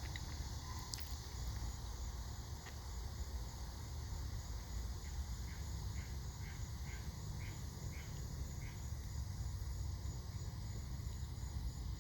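Evening insect chorus: a steady high-pitched buzzing drone over a low steady rumble. About halfway through, a short series of faint, evenly spaced chirps comes roughly twice a second for a few seconds.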